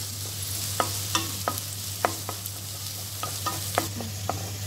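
Chopped onions and crushed garlic frying in oil in a nonstick kadai, a steady sizzle, while a wooden spatula stirs them, tapping and scraping against the pan about twice a second at an uneven pace.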